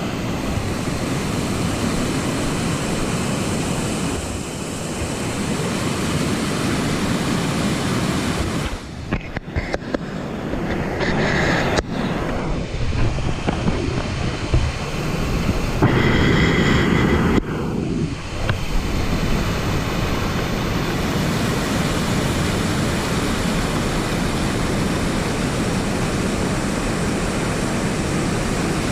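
Waterfall rushing: a steady, pretty loud wash of falling water, with a few brief dips and surges about midway.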